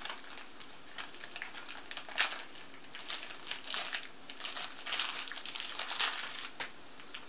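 Plastic sweets packet crinkling and rustling as it is handled and a strawberry lace is pulled out, in irregular crackles with a sharp one about two seconds in; it stops shortly before the end.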